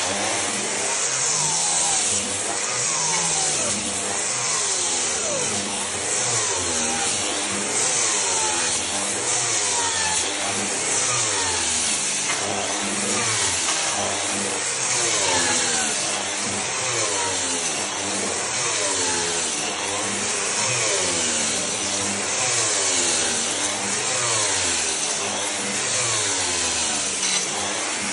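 Hand-held renovation grinder with a dust shroud and extraction hose running continuously while grinding down the floor surface. Its motor pitch keeps dipping and rising, roughly once a second, as it is pushed back and forth under load.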